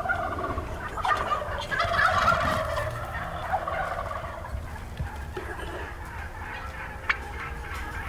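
Wild turkeys gobbling at close range, several calls overlapping, strongest in the first few seconds and tapering off after.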